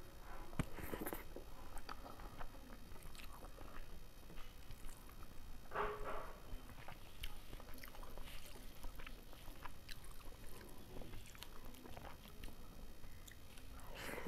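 Close-miked sounds of a person eating rice and mutton curry by hand: chewing with irregular wet mouth clicks and smacks, and a few louder bites.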